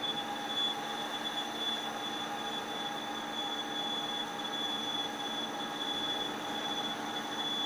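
CNC machine running while machining a part, a steady high-pitched whine with lower steady tones over a constant hiss.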